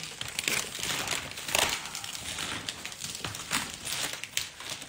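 Irregular crinkling and rustling as poster wrapping and a pouch of marker pens are handled.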